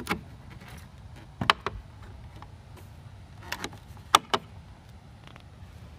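Lower glass of a tow mirror being pressed by hand onto its mount, giving about six sharp clicks and snaps. The loudest come about a second and a half in and about four seconds in.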